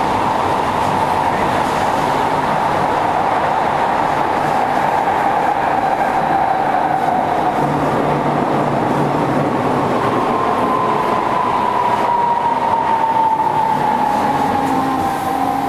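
Interior running sound of a Kyoto Municipal Subway Tozai Line 50 series train underground: a steady rumble of wheels on rail with a motor whine that slowly falls in pitch through the second half.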